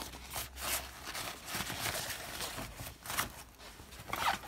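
Irregular rustling and scraping of a fabric tote bag and the books inside it being handled, with a louder rustle near the end.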